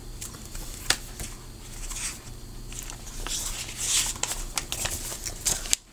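A picture book being handled and opened, its cover and pages rustling, with a sharp click about a second in.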